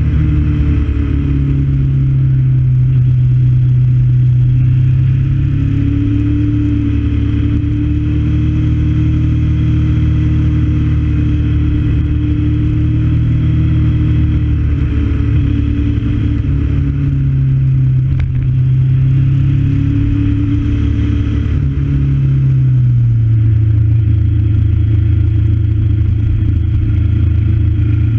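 Motorcycle engine running under way on a winding road, its pitch rising and falling several times with throttle and gear changes and dropping clearly a little past two-thirds of the way through, over a steady rush of road and wind noise.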